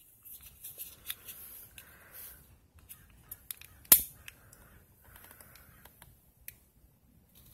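Long-nosed utility lighter being worked: a few small trigger clicks, then one sharp, loud ignition click about four seconds in as the flame catches, followed by a faint hiss from the burning flame.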